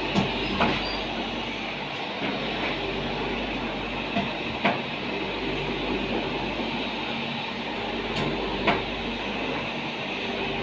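Bottle shrink-sleeve machine running: a steady mechanical hum and rattle from its motor and conveyor, with a few sharp clicks and knocks as bottles are set on and taken off the conveyor pucks.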